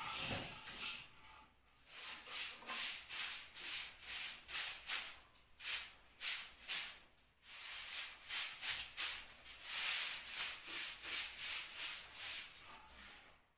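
Straw hand broom sweeping in short, rhythmic brushing strokes, about two to three a second, with a couple of brief pauses.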